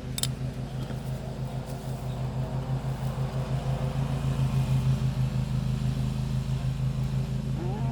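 A petrol lawn mower engine running steadily next door, a pulsing hum that grows a little louder toward the middle.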